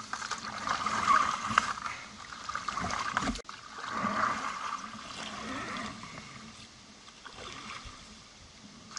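Water splashing and trickling around a canoe as it is paddled, swelling and fading every second or two, with a momentary dropout about a third of the way in.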